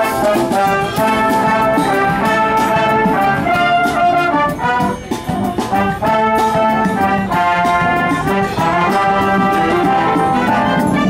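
Military brass band playing live, trumpets and trombones carrying a tune in changing notes, with a brief softer passage about halfway through.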